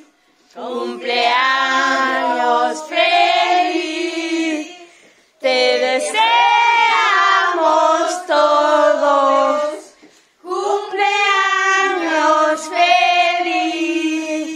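A high, child-like voice singing a melody in three long phrases, with short breaks between them.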